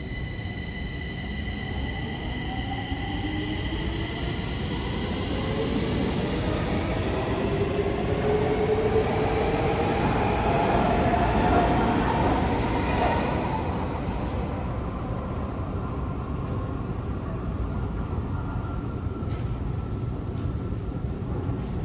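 Stockholm metro train pulling out of the station, its motors whining steadily upward in pitch over the rumble of the wheels. It is loudest about halfway through, then fades as it draws away.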